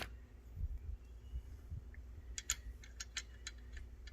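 Light clicks, about five a second for a second and a half near the end, as the wheel's lug bolts are started by hand on the remounted wheel, over low handling rumble.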